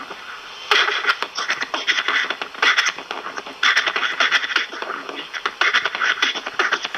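A cassette tape of a junior-high-age beginner's beatboxing played back through the small built-in speaker of an ELPA CTR-300 handheld cassette recorder: a quick rhythmic run of "bun bun" beats, thin and of poor sound quality, starting under a second in.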